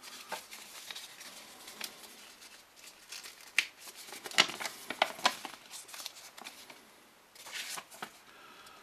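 A folded paper leaflet being handled and unfolded by hand: crisp paper crackles and rustles, with the loudest sharp crinkles bunched around the middle and a short burst again near the end.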